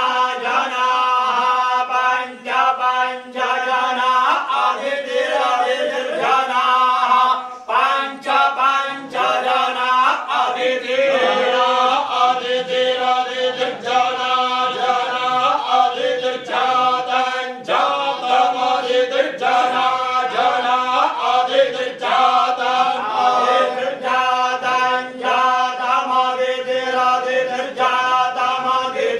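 Group of men chanting Vedic mantras together in unison, a steady recitation with short breaks every few seconds.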